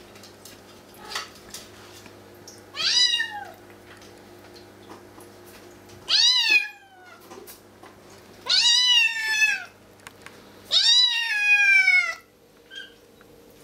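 Bengal kitten meowing four times, each call sliding down in pitch, the last two longer at about a second each: a hungry kitten begging to be fed.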